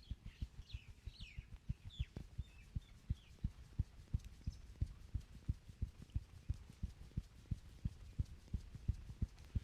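Rhythmic muffled thuds of hands striking the body in a pounding massage, about four a second. A few bird chirps sound faintly in the first two seconds.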